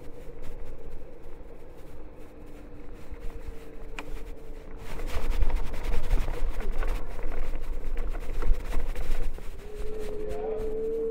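Electric scooter being ridden: a steady motor whine over wheel and wind rumble, with gusty noise in the middle and the whine rising slightly in pitch near the end.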